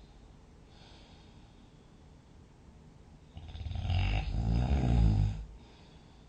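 A sleeping person snoring: a soft breath about a second in, then one long, loud, fluttering snore starting a little past three seconds in and lasting about two seconds.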